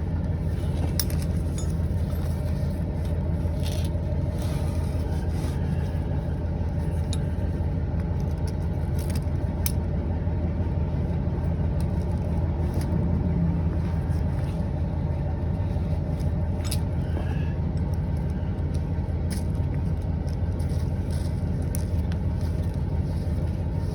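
A motor engine idles steadily with a low hum. Scattered short clicks and clinks from handling the tire and ratchet strap sound over it.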